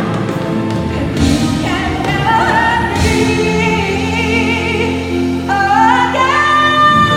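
Live pop ballad with a singer holding long, wavering notes over sustained band accompaniment, stepping up to a higher held note about five and a half seconds in.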